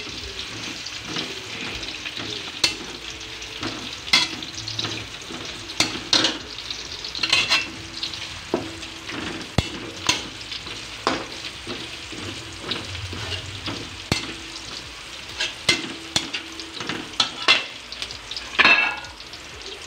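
Garlic and onion sizzling in hot oil in a stainless steel wok, with a metal spatula scraping and clinking against the pan at irregular moments as they are stirred.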